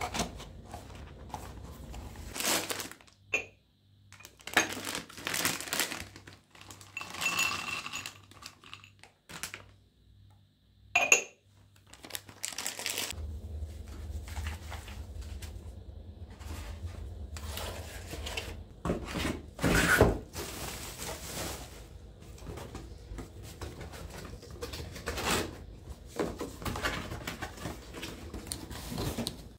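Kitchen handling sounds: irregular rustling, scraping and knocks of things being handled, with one sharp knock. A low steady hum joins about halfway through.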